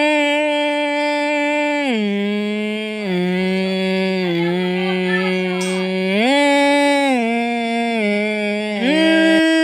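Background music: one sustained melody line, hummed or chanted in tone, holding long notes and sliding smoothly between a few low pitches.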